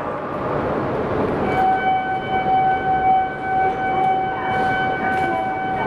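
A steady electronic tone held at one pitch, starting about a second and a half in, over the general noise of a station platform: a departure signal sounding on a Shinkansen platform.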